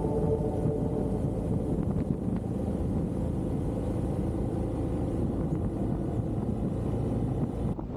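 Motorcycle on the move: a steady rush of wind and road noise with no distinct engine note.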